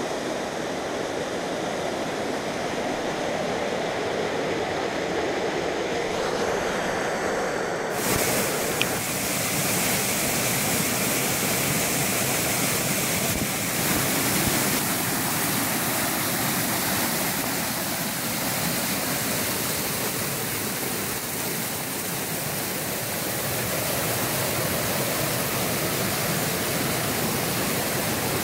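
Waterfall pouring over rock ledges: a steady rush of water that turns suddenly brighter and hissier about eight seconds in and stays that way, with one short click just after.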